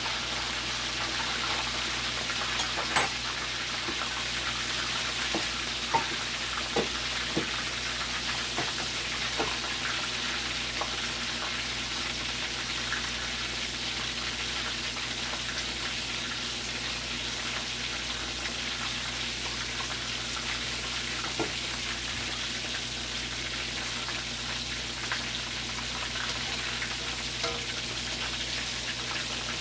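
Chicken leg quarters frying in hot oil: a steady sizzle, with a few sharp clicks in the first ten seconds. The pieces are crisping and browning their skin after being precooked in broth.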